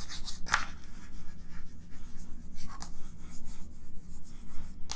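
Chalk writing on a chalkboard: an irregular run of short scratchy strokes and taps as words are written out.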